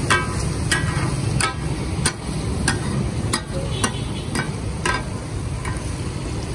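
Flat steel spatulas clanking and scraping on a large flat iron tawa griddle as taka tak (kata kat) meat is chopped and gathered, a sharp ringing clink about every half second. This clatter is the sound the dish is named for. A low, steady background noise runs underneath.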